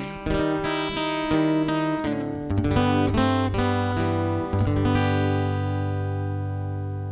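Acoustic guitar strumming a closing run of chords, then a final chord struck about five seconds in and left to ring, slowly fading: the ending of the song.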